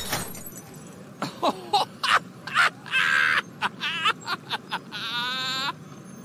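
An animated boy character laughing: a string of short 'ha' bursts that ends, about five seconds in, in one longer wavering laugh.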